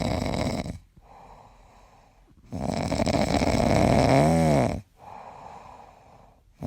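A sleeping animal snoring in long, loud breaths about every four seconds, with quieter breaths between. The second snore ends in a short pitched tone that rises and falls.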